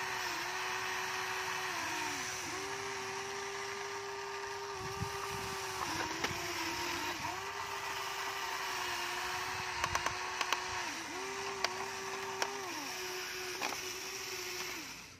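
Electric motors and gearboxes of a Huina radio-controlled toy excavator whining as the boom and bucket move: a steady high whine that drops in pitch and cuts off between movements, then starts again, several times over. A few sharp clicks come in the second half.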